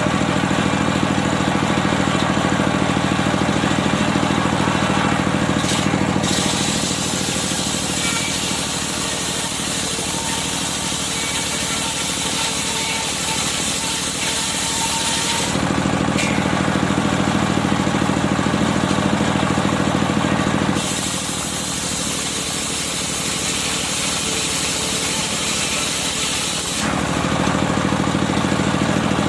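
Engine-driven circular sawmill running as it saws medang wood. A steady engine drone carries throughout, and the sound changes character several times as the blade goes in and out of the log.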